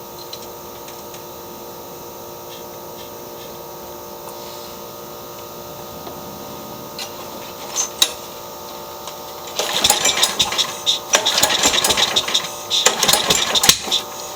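Briggs & Stratton Quantum engine on a Craftsman push mower being pull-started: near the end, three pulls of the recoil rope, each with a quick burst of cranking and popping, and it does not catch. It backfires out of the air filter housing, which the owner suspects is a sheared flywheel key throwing the timing off.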